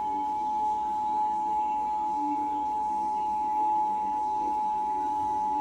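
Emergency Alert System attention signal: two steady tones of about 853 and 960 Hz sounding together without a break. It marks the start of an EAS flash flood warning broadcast over cable TV.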